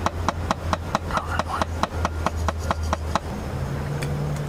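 Toothbrush scrubbing teeth close up, in quick even strokes about five a second, stopping about three seconds in.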